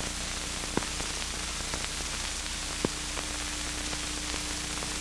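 Steady hiss and faint hum of an old film's soundtrack, with a few soft clicks, the clearest about a second in and just before the three-second mark.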